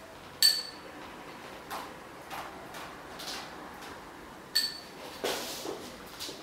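Intermittent knocks and brushing, scraping strokes from painting tools being handled. Two sharp metallic clinks ring briefly, one about half a second in and one about four and a half seconds in.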